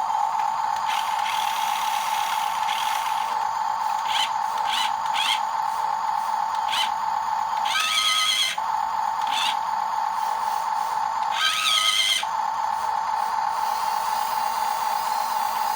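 Steady high-pitched whine of a small electric motor and its gearing in a radio-controlled model. It is broken twice, about eight and eleven and a half seconds in, by a short sound whose pitch wavers up and down.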